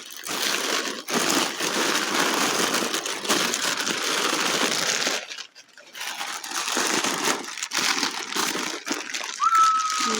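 Wrapping paper being crinkled and pulled away from a crystal as it is unwrapped, with a short pause about halfway through. A brief high held tone sounds just before the end.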